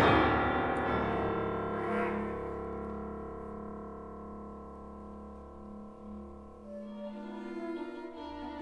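A chamber ensemble of flute, clarinet, piano, violin and cello playing contemporary classical music. A loud passage dies away into held, fading notes, and quieter new notes begin about seven seconds in.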